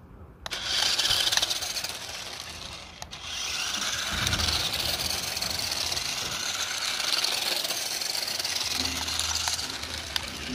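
Nikko toy RC off-road truck driving on asphalt: its small electric motor and gearbox whine, with tyre noise. The sound starts about half a second in and drops briefly around three seconds.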